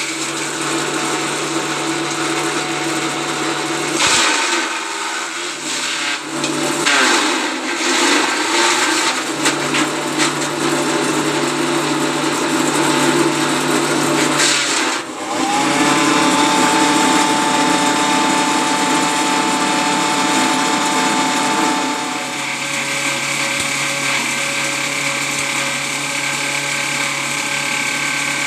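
Multifunction chopper-grinder machine (JG-350) running, a steady machine sound made up of several tones. It turns rougher and uneven about four seconds in, changes sharply about fifteen seconds in, and settles into a steadier tone near the end.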